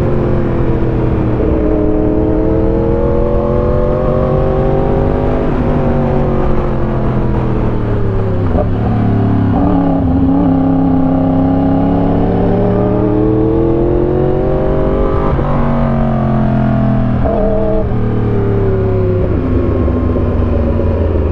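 Motorcycle engine heard from the bike while riding, revs climbing and falling again and again through a run of bends, with a few sudden breaks in pitch.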